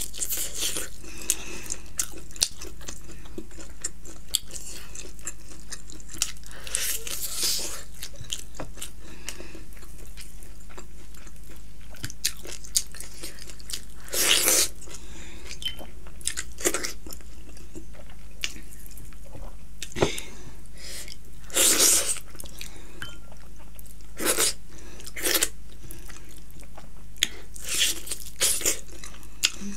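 Close-miked chewing and biting of a Giriraj chicken drumstick, with meat torn off the bone by mouth. The louder bites and chews come every few seconds, the strongest about fourteen and twenty-two seconds in.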